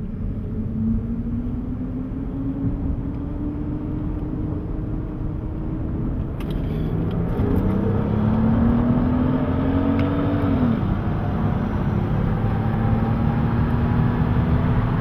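High-performance car engines running under load on a rolling run, the engine note climbing slowly in pitch. About halfway a second, louder note rises and then drops off sharply near eleven seconds, followed by a steadier lower drone.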